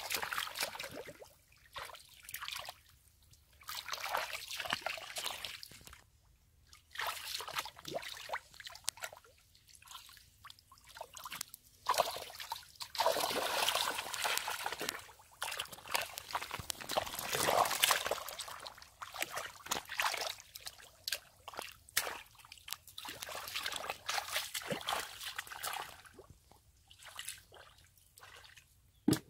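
Legs and hands moving through shallow muddy water and mud, sloshing and squelching in irregular bursts with short pauses between.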